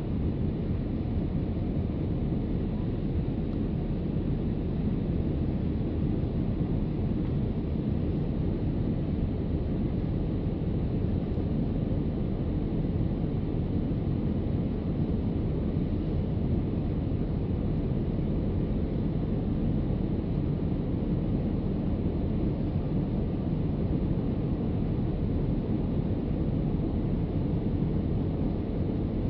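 Steady low rumble of a Boeing 787's cabin in flight: engine and airflow noise heard from a window seat.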